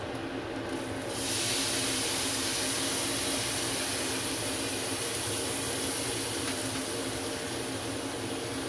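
Chopped onion, celery and bell pepper hitting a hot frying pan of bacon grease: sizzling starts suddenly about a second in and goes on steadily, easing a little near the end.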